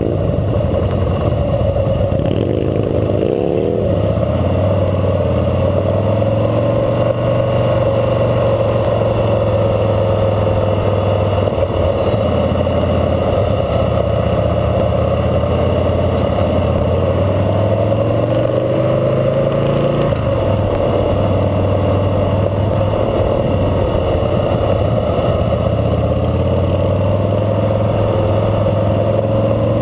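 Harley-Davidson Fat Boy Lo V-twin engine running under the rider at low parade speed, its pitch rising and falling as the bike accelerates and shifts, with a marked drop about two-thirds of the way through. Other motorcycles run nearby.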